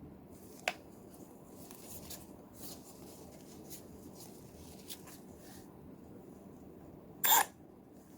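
Quiet handling noise from a cordless tool being turned over in the hands: soft rubbing and light taps, a sharp click about a second in, and one short, louder burst near the end.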